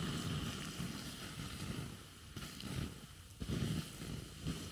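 Water poured from an insulated bottle onto the hot ashes and embers of a campfire to douse it, with uneven swells of splashing as the stream moves over the fire pit.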